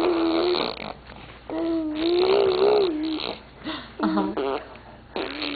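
Baby blowing wet raspberries, humming while her lips and tongue buzz, in three bouts: one at the start, a longer one about a second and a half in, and a short one near the four-second mark.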